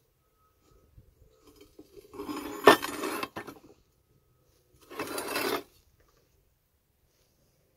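Metal clinking and scraping in two bursts, the first with one sharp clink near its middle: the steel-plated RC tank with its chain tracks being handled and shifted on a workbench.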